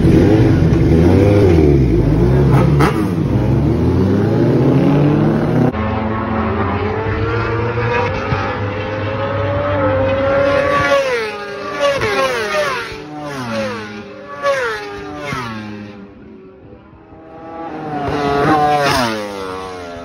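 A Kawasaki inline-four World Superbike engine revving loudly in the pit box for the first few seconds. Then racing superbikes accelerate hard down the straight, their engine pitch climbing and dropping sharply at each upshift, about five shifts in a row. Another bike revs up and passes near the end, fading away.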